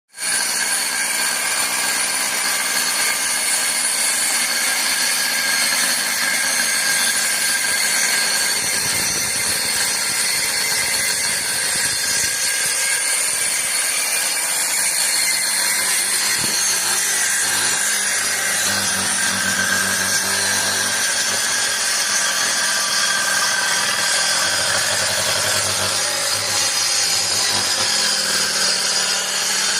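A high-speed woodworking power tool running continuously and working wood, with a steady high-pitched whine.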